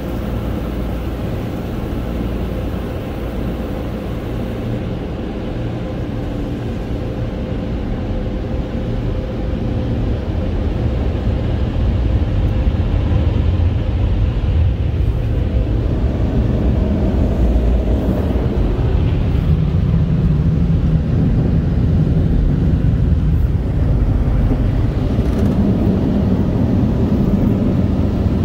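Car wash tunnel's blower dryers (air cannons) running, a steady low rush of air heard from inside the car, growing louder about ten seconds in as the car moves under them.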